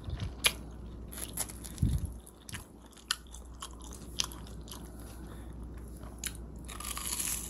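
Close-up crunching and chewing of a crisp, breadcrumb-coated tuna bread pie being eaten, with scattered sharp crunches and a low thump about two seconds in.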